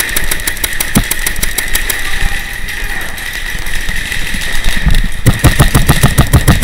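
Paintball markers firing: scattered shots in the first couple of seconds, then a fast string of about ten shots a second with heavy low thumps from a marker close by, starting about five seconds in.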